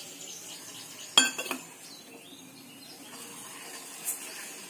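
Steel spoon clinking against a small pan while stirring spinach juice into sugar syrup: one sharp clink about a second in with a few lighter taps after it, and another clink near the end.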